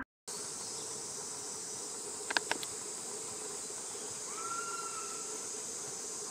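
Steady, high-pitched drone of a summer insect chorus. A few sharp clicks come a little over two seconds in, and a short whistle-like call that rises and then holds comes about four seconds in.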